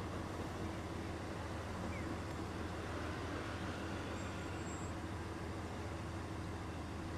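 Steady road traffic at an intersection: cars and motorbikes passing, with a low engine hum under the noise of tyres.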